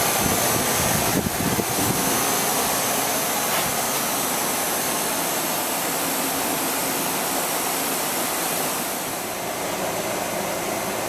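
Newly installed Rheem RANL037JAZ 3-ton air-conditioning condenser running steadily, its outdoor fan blowing air with the compressor on, at light load.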